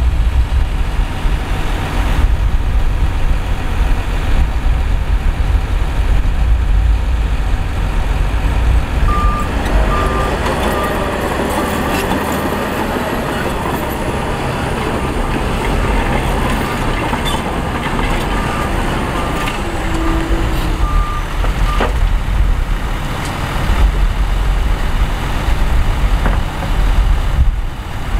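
Heavy diesel machinery running with a steady low engine sound. Through the middle a reversing alarm beeps repeatedly in short beeps, then stops.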